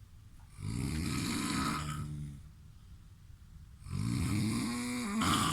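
A man snoring loudly: two long snores about three seconds apart, the second ending in a brief, louder burst.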